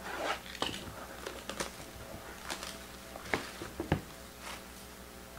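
Faint rustling and a few sharp clicks from hands opening and handling card packaging, most likely the sealed second box of a baseball card break.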